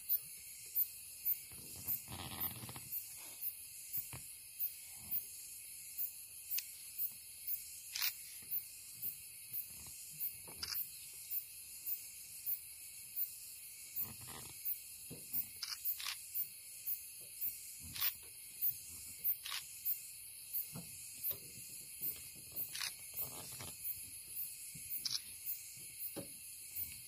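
Night insects chirping in a steady high-pitched pulse about twice a second, with scattered sharp clicks and a short low rustle about two seconds in.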